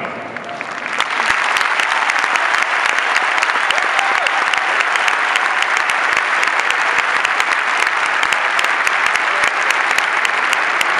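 Large arena crowd applauding. The clapping swells up over the first second and then holds steady.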